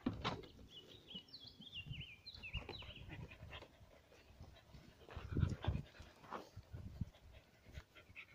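Small dogs playing, with a run of high, wavering whines between about one and three seconds in and scattered dull knocks and scuffles, the loudest a little past the middle.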